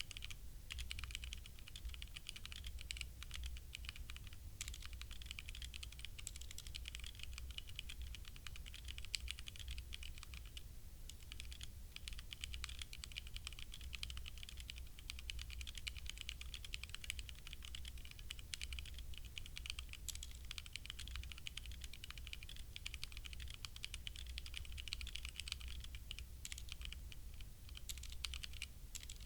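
HyperX Alloy Origins Core mechanical keyboard with HyperX Red linear switches being typed on continuously: a fast, uneven stream of keystroke clacks, with a brief pause about eleven seconds in.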